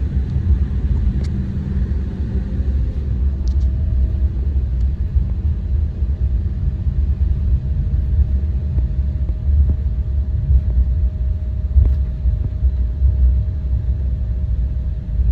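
Cabin noise inside a KLM Embraer 175 airliner taxiing: a steady low rumble of engines and rolling wheels. A faint steady tone joins in about three and a half seconds in.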